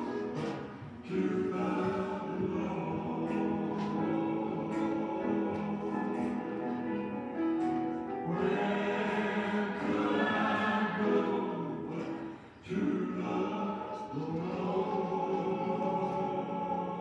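A choir singing a hymn in long phrases of held notes, with short breaks between phrases about a second in and about twelve and a half seconds in.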